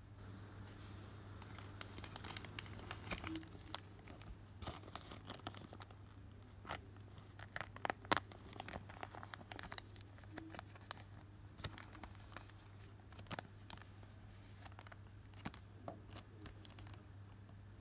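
Foil Pokémon booster-pack wrapper crinkling and crackling in irregular bursts as the opened pack is handled and the cards are slid out, over a steady low hum.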